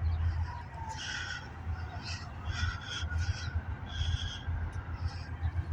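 Birds giving short calls, about eight at irregular intervals, over a low steady rumble.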